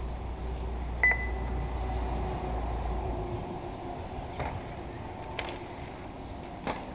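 Radio-controlled short-course trucks running on a dirt track: a faint wavering motor whine under a low rumble, a short electronic beep about a second in, and a few sharp clicks in the second half.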